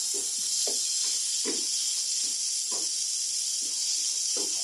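Boiled potato cubes sizzling in olive oil in a nonstick pan, with a steady high frying hiss. A wooden spatula knocks and scrapes against the pan about seven times as the potatoes are stirred.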